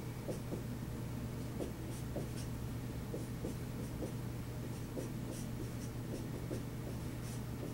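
Dry-erase marker squeaking and scratching across a whiteboard in many short strokes as numbers and fractions are written, over a steady low hum.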